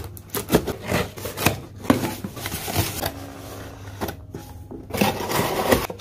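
Cardboard shipping box being opened by hand: a small blade slitting the packing tape, then the flaps pulled open and cardboard crackling, rustling and knocking as a boxed webcam is lifted out.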